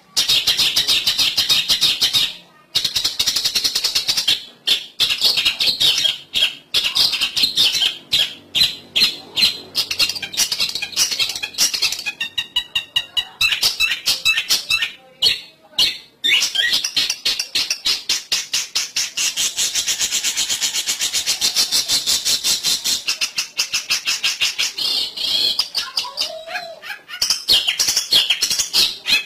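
Pikat lure call for long-tailed shrikes (cendet): rapid, harsh bird chattering, dense and nearly continuous, with a few short pauses.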